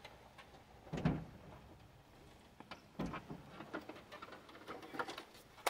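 Knocks, bumps and clatter of a heavy lawnmower being lifted and unloaded, with a louder thump about a second in and another about three seconds in.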